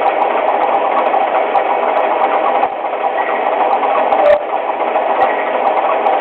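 Lionel TMCC model crane car running as its cab swings the boom round, a steady motor and engine sound, with a sharp click a little past four seconds in.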